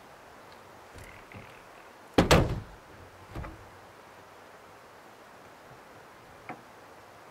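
Pickup camper shell's rear glass hatch pulled down and shut with one loud thud about two seconds in, followed by a smaller knock a second later and a faint click near the end.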